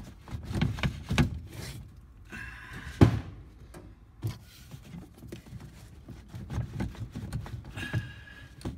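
Rubber intake boot (S-boot) and hoses on a VW bus engine being wiggled by hand to work the boot free: irregular knocks, thunks and rubbing, with one loud knock about three seconds in.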